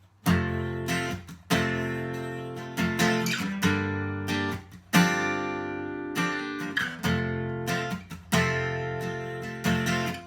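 Acoustic guitar strumming chords, each chord struck firmly and left to ring out before the next, about one strum every second or so.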